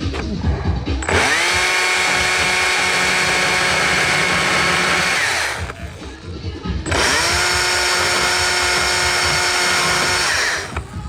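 An electric power tool run twice, each time spinning up quickly to a steady high whine and holding for about four seconds before winding down. Background music plays underneath.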